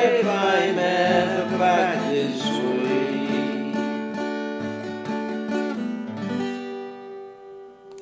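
A man's voice finishes the last line of a folk ballad over strummed acoustic guitar; the voice ends after about two and a half seconds, and the guitar plays on to a final chord that rings and fades out.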